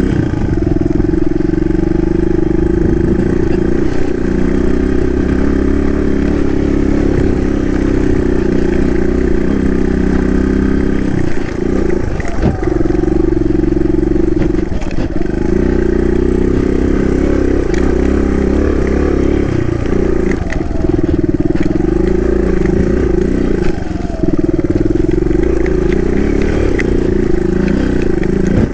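Dual-sport motorcycle engine running steadily while riding along a dirt track. Its note drops briefly several times, about 12, 15, 20 and 24 seconds in, as the throttle is eased and opened again.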